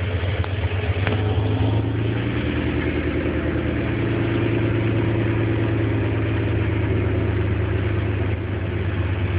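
Nissan Z sports car engine idling steadily, heard over the open engine bay; the headers are being checked for an exhaust leak, and the owner has found none.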